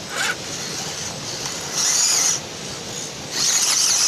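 Electric motor and gearbox of a scale RC crawler whining under throttle in two bursts, a short one about halfway through and a longer one near the end.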